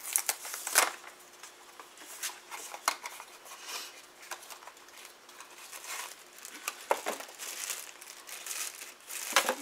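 Packaging of a blind-box mini figure being crinkled and torn open by hand: irregular crackles and rustles of wrapper.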